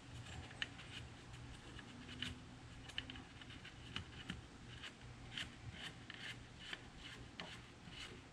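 The mesh rear-door sunshade of a BMW E39 is being rolled up by hand onto its roller, with faint, irregular clicks and rustles about two to three times a second. The roller no longer winds itself back.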